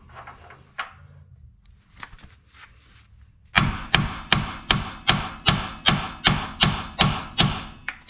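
Hand hammer striking a rear lower control arm bolt to drive it out, in a steady run of about a dozen blows, roughly three a second, each with a metallic ring. The blows begin a few seconds in, after some quieter clinks and tool handling.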